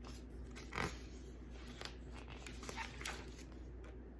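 Soft paper handling: a few brief rustles as the pages of a paperback guidebook are turned, the clearest about a second in.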